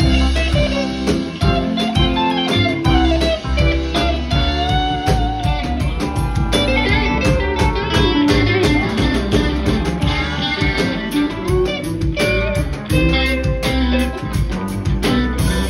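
Live rock band playing an instrumental jam: electric guitars play lead lines over bass and drums.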